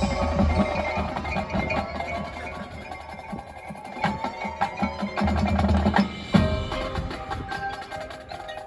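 High school marching band playing, with mallet percussion and drums over low sustained notes; a loud accented hit comes about six seconds in.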